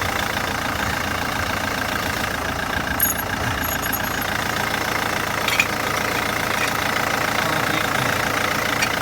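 Vauxhall Astra 1.7 turbo diesel engine idling steadily, with a couple of brief light clicks about three and five and a half seconds in.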